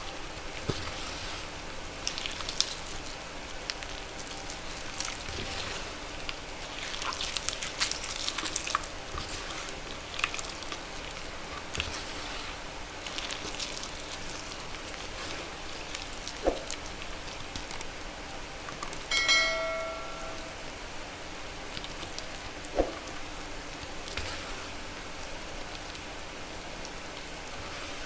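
Pure magnesium carbonate gym chalk soaked in water, crackling and popping with a dense patter of small sharp pops, busiest a few seconds in. About two-thirds of the way through, a short squeaky tone sounds for under a second.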